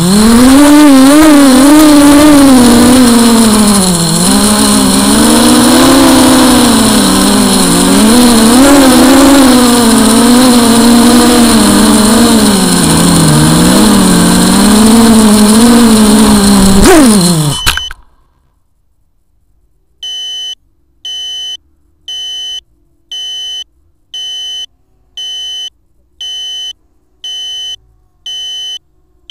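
Electric motors and propellers of a radio-controlled model aircraft running loud and close, the pitch rising and falling with the throttle, then a quick rise and a sudden cut-off about seventeen seconds in. After a short silence, a steady run of electronic beeps begins, about one and a half a second.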